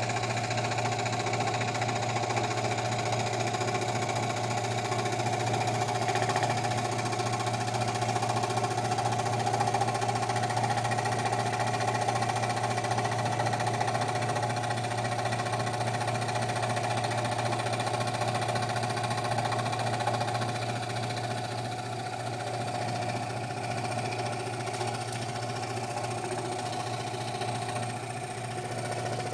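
Scroll saw running steadily, its motor humming and blade reciprocating rapidly. It becomes a little quieter after about twenty seconds.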